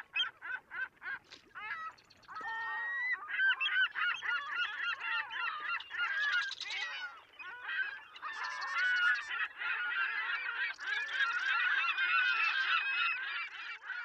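A flock of birds calling: a few separate calls at first, then from about two seconds in a dense chorus of many overlapping calls.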